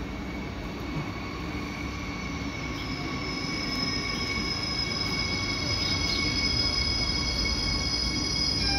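Siemens Desiro HC electric multiple unit pulling into the platform and slowing, its rumble growing louder under several high, steady squealing tones.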